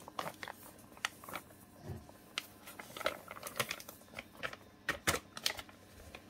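Plastic bag of rice flour crinkling as it is tipped and the flour poured into a glass bowl: soft, irregular crackles and clicks.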